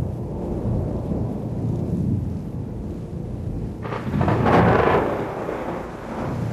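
Thunder sound effect: a low rumble rolling on, then a louder crash of thunder about four seconds in that fades out over a second or so.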